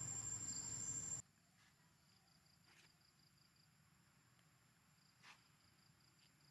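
A noisy stretch with a steady high whine cuts off abruptly about a second in. What remains is very quiet: faint, rapid insect chirping in two short runs, with a couple of soft clicks.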